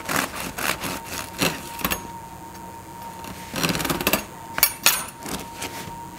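Bread knife sawing through the crust and crumb of a whole wheat loaf in short back-and-forth strokes, about two or three a second, then a pause. Near the end come a few more rasping strokes and a couple of sharp knocks.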